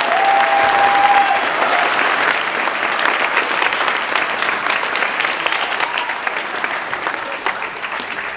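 Audience applauding, the clapping easing off gradually.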